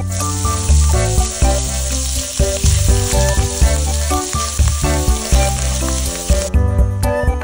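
Chopped bacon sizzling as it fries in melted butter in a nonstick pan, a steady hiss that cuts off suddenly about six and a half seconds in. Background music plays throughout.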